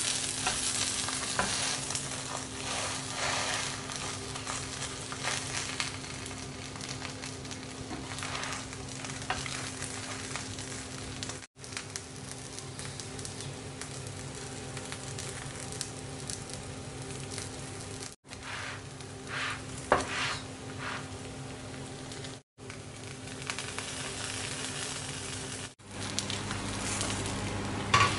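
Bánh xèo sizzling steadily as it fries in oil in a nonstick pan, with a few taps and scrapes of a wooden spatula against the crêpe and pan, the clearest near the end. The sizzle cuts out for an instant four times.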